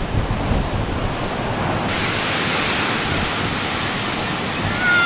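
Ocean surf breaking and washing up the beach, a steady rushing hiss, with wind rumbling on the microphone for the first two seconds. A short high-pitched cry rises just before the end.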